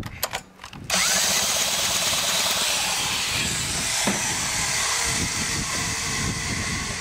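Power drill on the flywheel nut of a 15 hp Johnson two-cylinder outboard, spinning the engine over for a compression test on the bottom cylinder. A few clicks come first, then about a second in the drill starts and runs steadily, easing off near the end.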